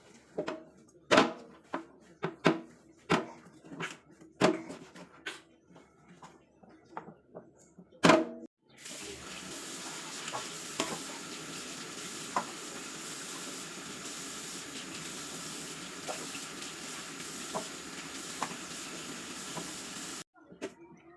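Kitchen work: dishes and utensils clatter and knock a dozen or so times for the first eight seconds or so. Then a steady hiss runs for about eleven seconds, with a few faint ticks, and stops shortly before the end.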